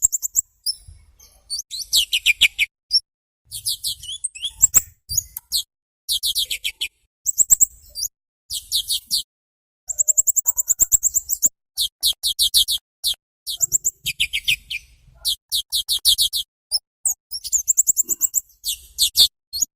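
A small bird calling in rapid, high-pitched chattering trills, repeated in phrases of about a second with short pauses between them.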